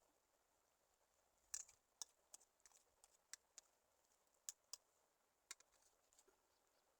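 A series of faint, sharp clicks and ticks, about a dozen at irregular spacing over roughly four seconds.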